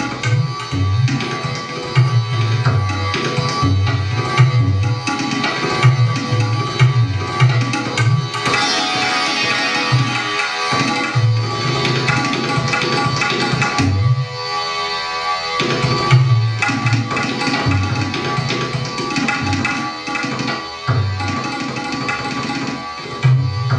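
Background music: low drum strokes in a steady rhythm over a sustained drone, with a short break in the drumming about two-thirds of the way through.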